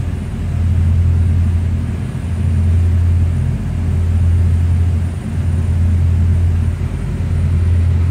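Loud low drone of the ship's engines heard on the bridge, a deep steady hum that swells and eases every couple of seconds.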